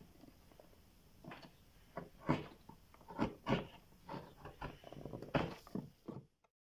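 Knife blade scraping and chipping the edges of a wooden box by hand, about ten short scraping strokes at an uneven pace, roughing up the wood on purpose to make it look worn. The sound cuts off suddenly near the end.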